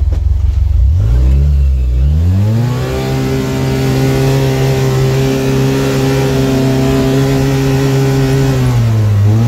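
Havoc UTV engine heard from inside the cab while driving: the engine speed rises about two seconds in, then holds a steady pitch. It dips briefly near the end.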